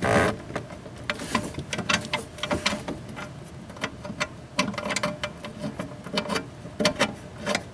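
Irregular light clicks and ticks of a bolt and hand tool being worked into a tractor cab's plastic cowl, with a sharper knock at the very start.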